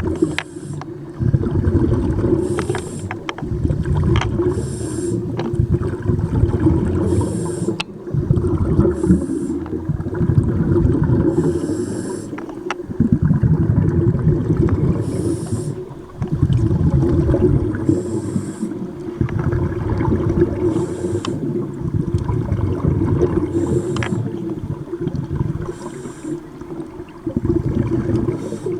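Scuba diver breathing through a regulator underwater, heard through the camera housing. A short high hiss of inhaling comes every two to three seconds, and between them long stretches of low exhaled-bubble noise.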